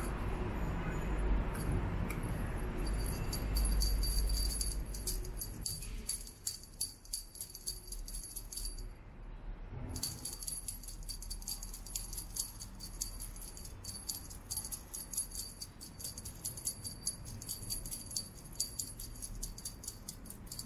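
Small jingle bell on a cat wand toy rattling and jingling as the toy is shaken. The jingling stops for about a second near the middle, then resumes.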